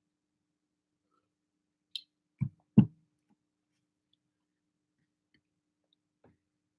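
A short click followed by two dull knocks a little under half a second apart, the second one the loudest, as a drinking tumbler is set down on a table or surface.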